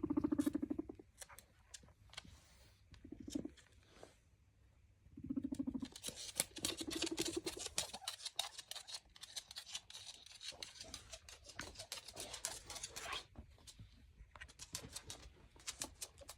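Guinea pig rumbling: a low, rapidly pulsing purr in short bursts, near the start, about three seconds in, and again from about five seconds. Overlapping it and running on to about thirteen seconds is a rapid crisp crackling.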